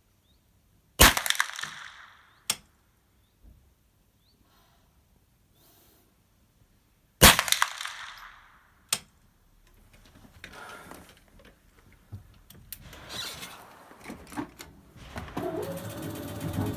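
Two single shots from a .22 LR rifle (CCI Mini Mag rounds) about six seconds apart, each a sharp crack with a short echoing tail, followed about a second and a half later by a fainter crack. In the last several seconds there is irregular rustling and clicking handling noise that grows louder.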